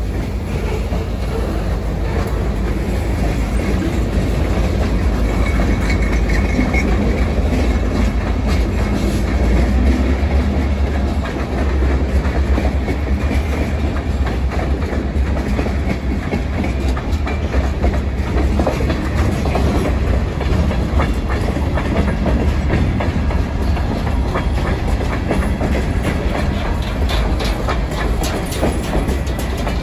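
Diesel freight train passing close by: the locomotive goes by first, then a string of freight cars rumbling steadily over the rails. Wheels clickety-clack over the rail joints, the clicks sharper and more frequent near the end.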